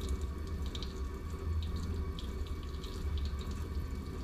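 Water running from a scrub-sink faucet into a stainless steel basin, with irregular splashes as forearms are rinsed under the stream at the rinse stage of a surgical hand scrub. A steady low rumble lies underneath.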